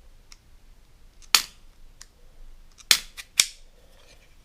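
Sharp plastic clicks from loading pellets into a 3D-printed DARC air rifle magazine, with three loud clicks and a few fainter ticks between them.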